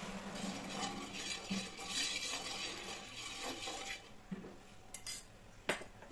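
Metal spoon spreading oil over a hot non-stick frying pan, scraping across the coated surface, followed by a few sharp clinks of the spoon against the pan near the end.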